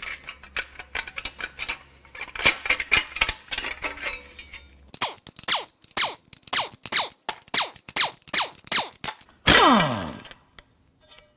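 Pneumatic impact wrench on the exhaust manifold bolts of an 8.0L Magnum V10. It fires a quick run of short bursts, about three a second, each winding down in pitch, then one longer, louder burst near the end. Before that come scattered metal clinks and scrapes as tools are handled.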